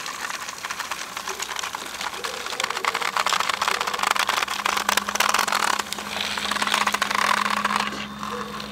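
Battery-powered toy train's small electric motor and plastic gears running as it rolls along plastic track, with a fast, continuous clicking rattle.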